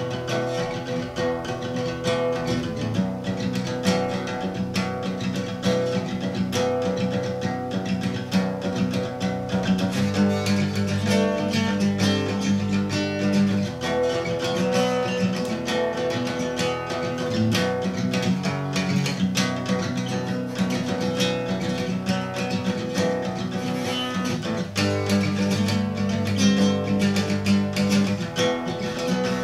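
Steel-string acoustic guitar played solo, a continuous flow of picked and strummed chords at an even level.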